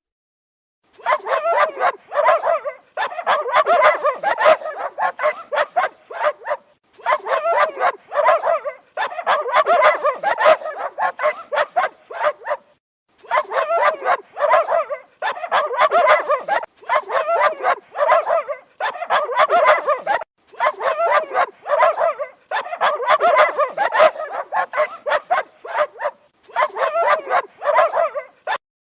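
Dogs barking rapidly in runs of one to three seconds, with short pauses between the runs.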